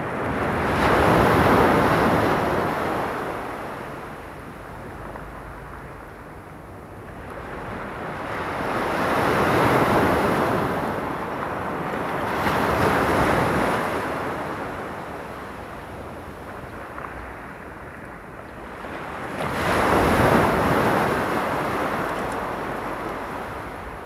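Small sea waves breaking and washing up a pebble beach: four slow swells of surf, the loudest about a second in and around twenty seconds in, with quieter lulls between.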